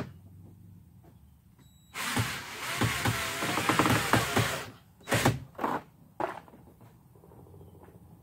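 Cordless drill driving a screw through a flattened PVC rib into a plastic barrel canoe hull: one run of about two and a half seconds, its pitch shifting as the screw bites, then two short bursts to snug it down.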